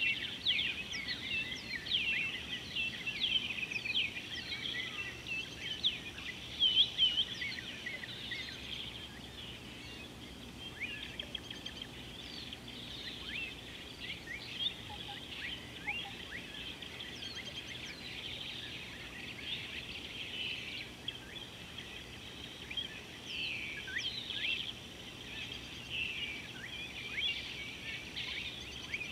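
Many wild birds chirping and trilling over one another in a busy chorus, thickest near the start and again near the end, over a faint steady high tone.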